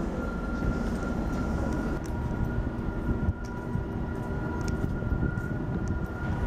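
Diesel passenger locomotive running at a standstill: a steady low rumble with a steady high whine held over it.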